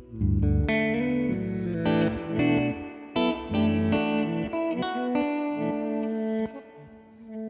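Electric guitar, a Fender American Vintage II Jazzmaster, played through an Old Blood Noise BL-44 reverse pedal: a phrase of notes and chords with reversed, swelling repeats, dying away near the end.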